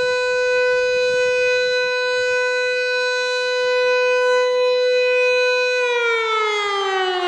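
Civil defence siren wailing: a tone rich in overtones held at one steady pitch for about six seconds, then sliding down in pitch near the end.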